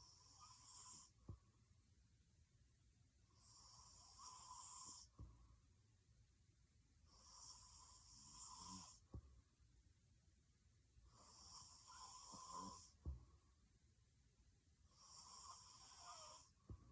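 A woman snoring heavily in her sleep: five snores about four seconds apart, each ending in a short click.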